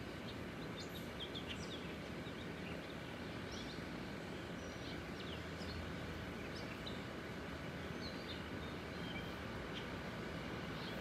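Small birds chirping in many short, quick high notes, over a steady low rumble from a Boeing 777 airliner passing high overhead.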